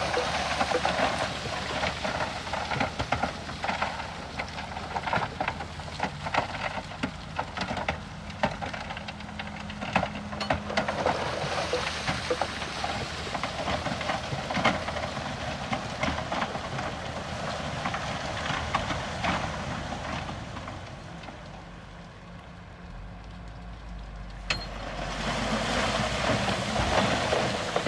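Heavy diesel machinery running low and steady under a dense crackling rattle of stone and gravel being moved. The rattle eases off for a few seconds near the end, then comes back.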